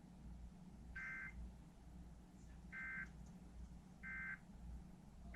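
Emergency Alert System end-of-message data tones: short warbling two-pitch digital bursts, three in a row with a fourth starting at the end, each well under half a second. They are faint over a steady low hum.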